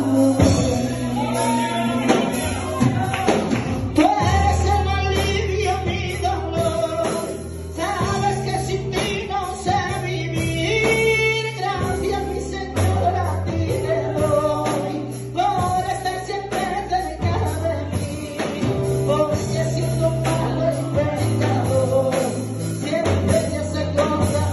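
A man singing a Christian worship song into a microphone through a PA, over backing music with a bass line that holds each note for a second or two.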